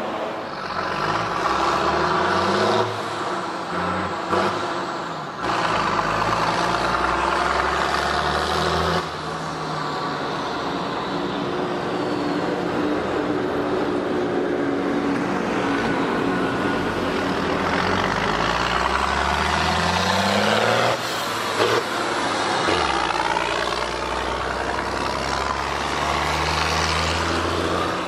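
400 hp Fendt 824 tractor's diesel engine pulling hard and passing, its pitch rising and falling through the gears, in several takes joined by abrupt cuts. A brief sharp sound stands out about three quarters of the way through.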